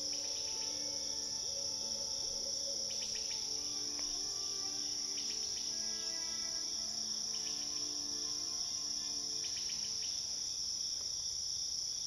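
Steady high chirring of crickets with soft background music of slowly changing tones, and a few short chirps about three, five and nine seconds in.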